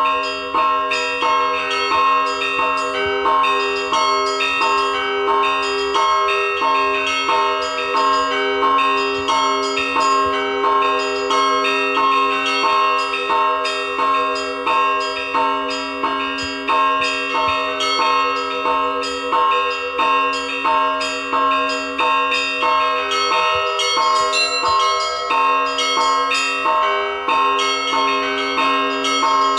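Russian Orthodox church bells rung in a continuous peal: several bells of different pitch struck over and over in a quick, steady rhythm, with a low bell sounding beneath the higher ones.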